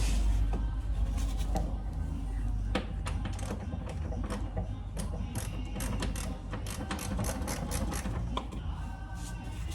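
Hand socket ratchet clicking in irregular quick runs as a bolt is turned, with scattered metallic clicks and clinks.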